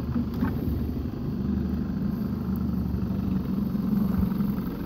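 Boat's outboard motor running steadily at low speed, a constant low hum.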